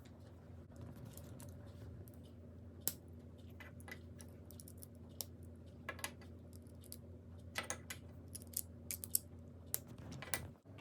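Plastic LEGO pieces clicking and tapping as they are handled and pressed together: scattered sharp clicks, coming in a quick cluster about three-quarters of the way through, over a steady low hum.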